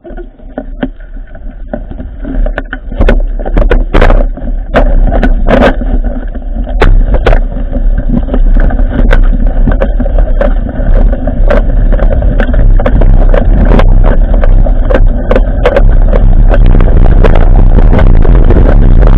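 Mountain bike setting off and gathering speed, heard through its bike-mounted action camera: wind buffets the microphone and the bike and mount rattle and knock over the rough ground. The knocks are thick in the first half, and the wind noise grows until it is loud and steady near the end.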